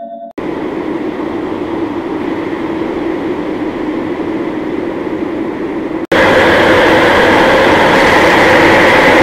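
Loud, harsh noise of heavily effect-processed audio, with no clear tune or voice. It cuts out for an instant about six seconds in and comes back louder and brighter.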